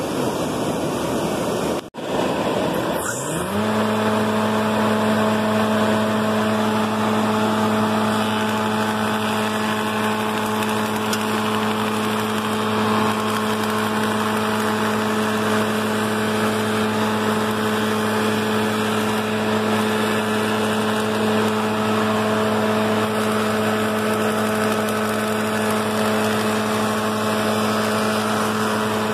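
U.S. Concepts arch moulder starting up: its motor and cutterhead spin up quickly about three seconds in, rising in pitch, then run at speed with a steady hum. A steady rushing noise runs underneath.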